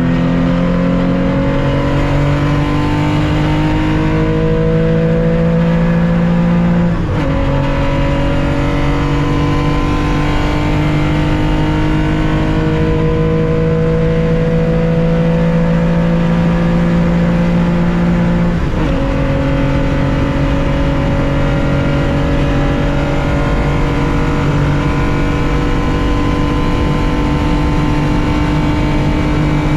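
Race car engine heard from on board, pulling hard under full throttle with a slowly rising note. It is cut short by two quick upshifts, about seven seconds in and again about nineteen seconds in, each dropping the pitch before it climbs again.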